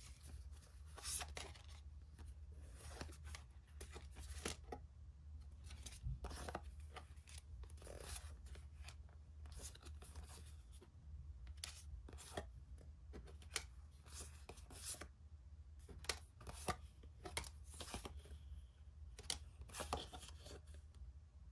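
Tarot cards being handled and slid one by one from hand to hand: irregular soft flicks and rubs of card stock, several a second at times, over a faint steady low hum.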